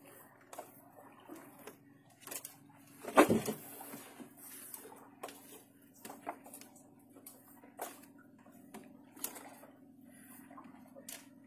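Fishing reel and tackle clicking and knocking as a hooked fish is fought and reeled in, over a steady low hum, with one louder knock about three seconds in.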